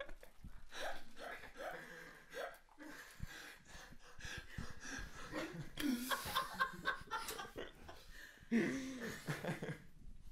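Young men laughing in short bursts held back through closed lips, with breathing in between.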